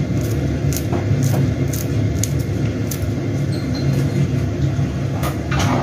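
Kitchen scissors snipping a chili pepper, a series of short sharp clicks about every half second, over a steady low hum.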